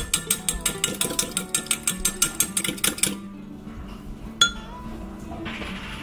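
A fork beating eggs in a glass measuring cup, clinking rapidly against the glass several times a second, then stopping about three seconds in, with one more clink a moment later. Background music plays underneath.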